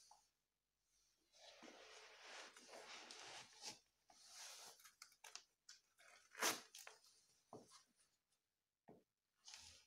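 Faint rustling and rubbing of a stockinged foot working in and out of a suede high-heeled ankle boot, with a few sharp taps of the boot on a tiled floor, the loudest about six and a half seconds in.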